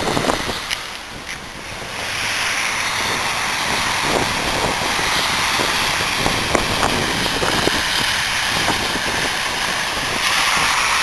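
Snowstorm wind rushing over the microphone in a steady noise, with scattered light ticks.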